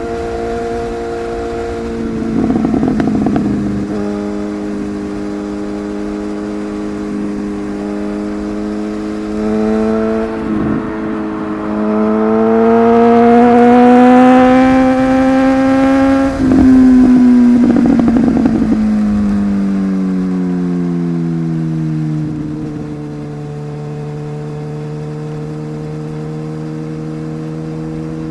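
Superbike's inline-four engine under way at steady revs. About halfway through, its note climbs gradually as it accelerates, then drops away steadily as it slows, settling at a lower, even note near the end.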